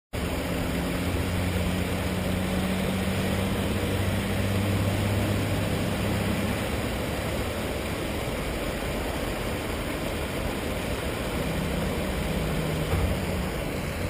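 Steady rush of water spilling over a low concrete weir. A low droning hum sits beneath it for the first six seconds or so and returns briefly near the end.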